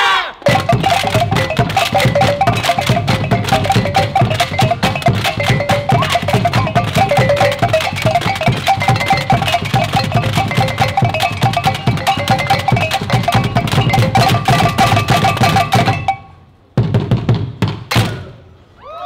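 Fast, dense percussion music of drums with a repeating pitched pattern, which stops abruptly near the end. A short final burst follows.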